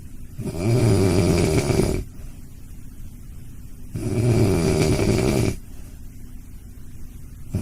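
A dog snoring in its sleep: two loud, rattling snores about three and a half seconds apart, each lasting about a second and a half, with quieter breathing between them.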